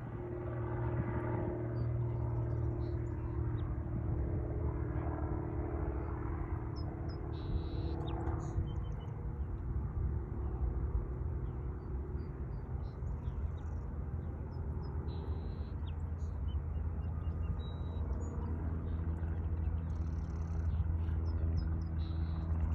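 A steady low motor rumble, its pitch shifting slightly a couple of times, with a few faint short high chirps over it.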